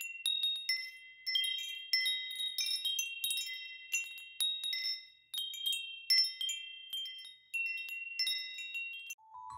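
Wind chimes tinkling: high, clear metallic tones struck at uneven moments, often several at once, each ringing on and fading.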